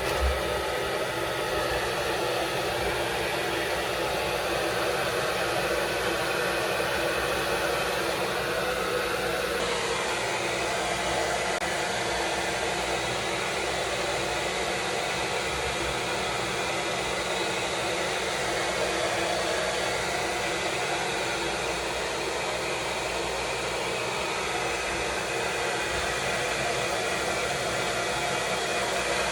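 Handheld blow dryer running steadily on a wig install, blowing hot air to melt down the wig cap or dry the lace glue.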